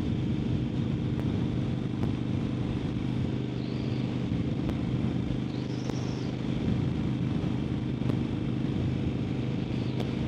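Harley-Davidson XL1200N Sportster's air-cooled 1200 cc V-twin running steadily while cruising, with constant wind and road noise.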